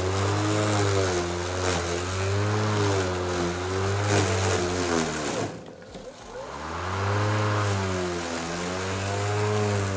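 Ryobi 40V brushless cordless lawn mower running under load in thick grass, its motor and blade pitch wavering up and down. About five and a half seconds in it slows down sharply, almost stalling, then spins back up to speed: the blade bogging in grass too thick for it to keep turning.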